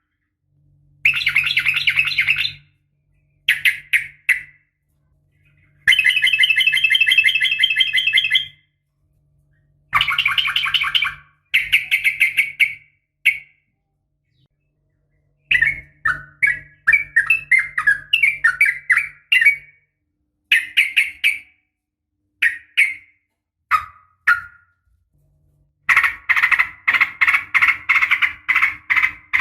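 Yellow-vented bulbul (trucukan) calling in repeated bursts of rapid, bubbly chattering notes, each burst one to three seconds long and separated by short silences; the longest runs come in the middle and near the end. This is the kind of call used as a lure track to set caged males singing, here presented as a female calling a male.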